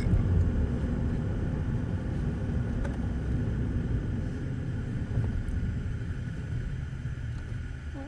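Steady low rumble of a car's tyres and engine heard from inside the moving car's cabin, dropping off gradually toward the end.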